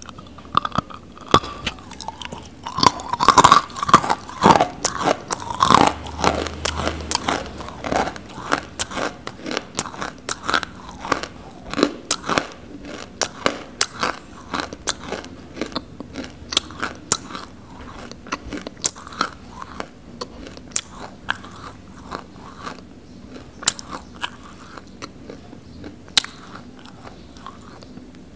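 Close-miked crunching of a chunk of dry, non-roasted nakumatt clay being bitten and chewed. Rapid sharp crunches are densest and loudest a few seconds in, then thin to slower, scattered crunches.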